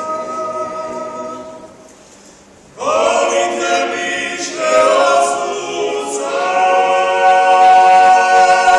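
Klapa, a small all-male a cappella group, singing close-harmony chords: a held chord fades away, and about three seconds in the group comes back in loudly on a new chord. They hold long sustained chords, moving to a new one twice.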